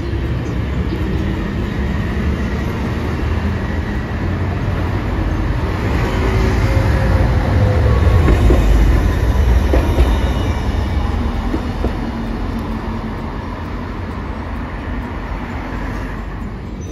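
Hiroshima Electric Railway Green Mover LEX low-floor tram passing close by on street track. Its rumble builds to a peak about eight to ten seconds in and then fades, with a faint whine shifting in pitch as it goes by.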